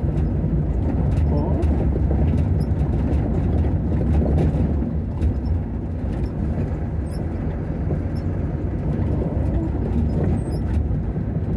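Motor vehicle driving slowly on a bumpy dirt road, heard from inside the cab: a steady low engine and tyre rumble with a few faint rattles.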